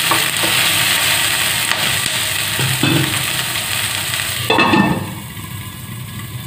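Chopped vegetables sizzling in hot oil in a non-stick kadai, a spatula scraping and stirring through them. About four and a half seconds in, a glass lid is set on the pan with a clatter, and the sizzle drops to a quieter, muffled hiss.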